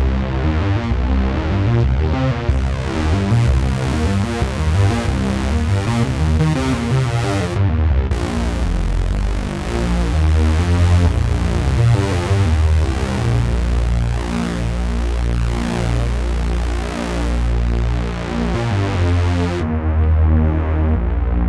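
Synthesizer pad presets from AAS's Ultra Pads sound pack playing sustained, layered chords over a steady deep bass. The bright top end drops away briefly about eight seconds in and again near the end.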